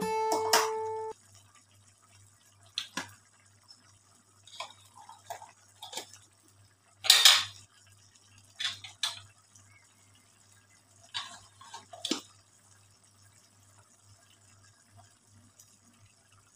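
Guitar music ends about a second in. After that there are scattered light clinks and knocks of kitchenware, the loudest about seven seconds in, over a low steady hum.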